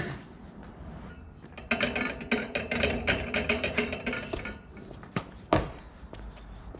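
Metal railing rattling and clanking in a quick run of knocks, with some ringing, for about two and a half seconds as a person swings on it. Then two thuds of feet landing on paving stones.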